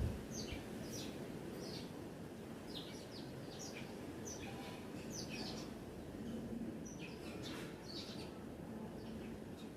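Small songbirds chirping: short, high, downward-slurred chirps repeated irregularly, one or two a second, over a steady low outdoor background noise.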